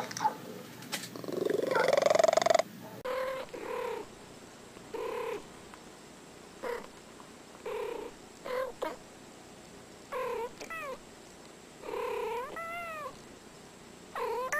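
A tabby cat makes loud, drawn-out sounds for the first few seconds. Then two cats trade short meows and chirps back and forth, with a few longer meows that rise and fall near the end.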